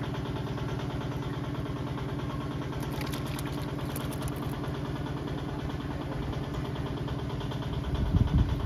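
An engine running steadily with a fast, even beat, with a few low thumps near the end.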